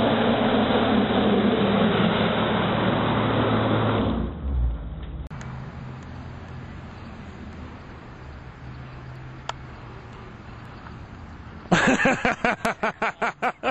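Jeep Cherokee doing a burnout: the engine is held at steady high revs while the rear tyres spin in place and smoke. It cuts off abruptly about four seconds in, leaving quiet background noise, and near the end a loud rapid pulsing comes in at several beats a second.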